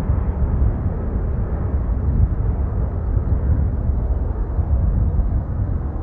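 Boeing 767 jet engines after takeoff as the airliner climbs away: a steady low rumble whose higher part slowly fades. Strong wind buffets the microphone.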